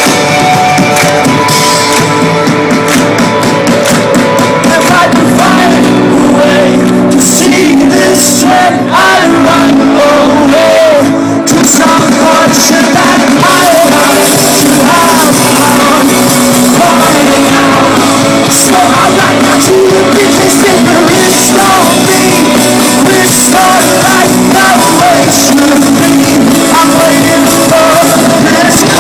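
Indie rock band playing live and loud, with a lead vocal that comes in strongly about six seconds in.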